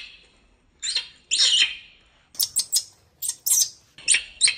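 Baby macaque giving a string of shrill, high-pitched screams, some single and some in quick runs of two or three, with short pauses between. The cries are the protest calls of an upset infant monkey.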